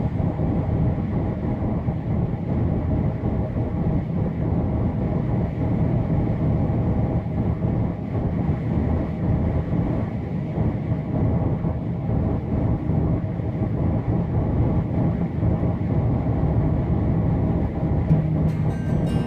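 Steady road and engine noise heard from inside a car driving at highway speed: a dense, even low rumble with a faint constant hum.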